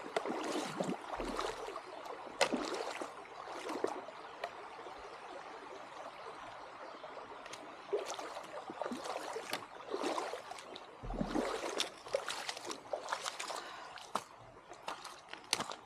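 Shallow stream gurgling and trickling, with irregular short splashes of water.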